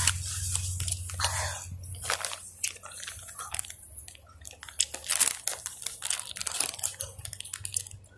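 Footsteps crunching and rustling through dry leaf litter and low plants, in irregular crackles, with a low hum that fades out about two seconds in.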